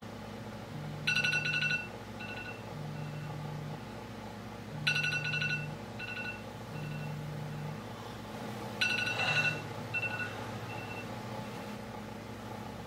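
iPhone alarm going off: a bright chime sounds three times, about four seconds apart, each followed by fading echoes, while the phone's vibration buzzes on and off about every two seconds. Both stop after the third chime, as the alarm is silenced.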